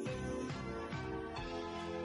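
Instrumental background music: sustained notes with low bass notes coming in right at the start.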